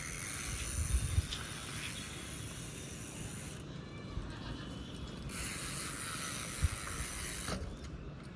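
Mountain bike rear freewheel hub ticking rapidly as the bike coasts, its tyres rolling, with a few light knocks; the ticking breaks off twice for a second or two.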